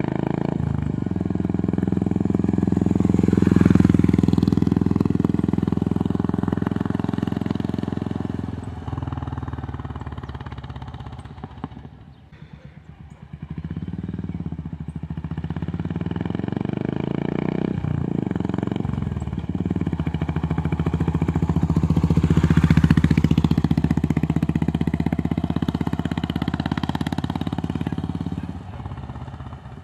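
Royal Enfield Meteor 350 single-cylinder engine with the 'Customer' accessory exhaust, ridden past twice at low revs. Each time the low, even engine note swells as the bike approaches and fades as it moves away.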